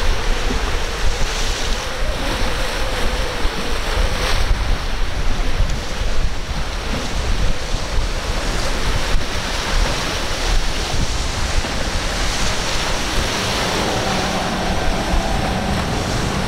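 Wind rumbling on the microphone over breaking surf and sea chop, with the outboard engines of an MTI 42' (quad Mercury Racing 450 hp) heard faintly under it as a steady drone near the start and again near the end as the boat runs past.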